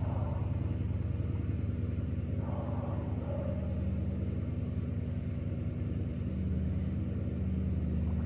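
A motor vehicle engine running steadily with a low hum. Its note shifts slightly about six seconds in.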